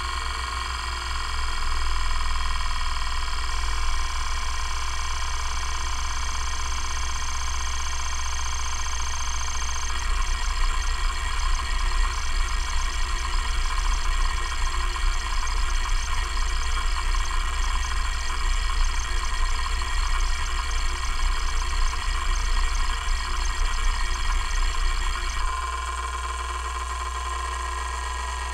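Kalok KL3100 hard drive's stepper motor moving the heads during seek tests, over the steady hum of the spindle. At first it is an even stepping sound with a faint high tone that rises in pitch in steps. From about ten seconds in it becomes a fast, irregular chatter of random seeks. Near the end it drops to a quieter, even buzz as the heads step track to track.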